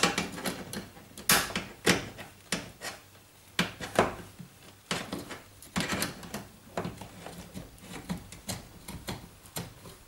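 Grips working the spring hose clips on a dishwasher's heater pipes: irregular sharp clicks and knocks of the tool against the metal clips, with handling noise between them.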